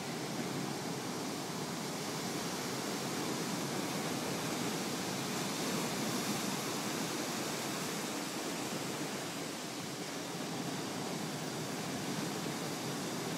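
Ocean surf breaking and washing up over sand and around rocks: a steady rushing that swells a little partway through and eases again.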